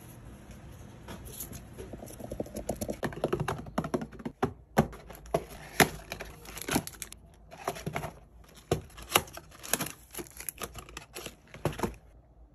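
Hands handling cardboard booster boxes and packaging: rustling and an irregular run of sharp clicks and taps as things are picked up and set down. It starts about two seconds in and fades near the end.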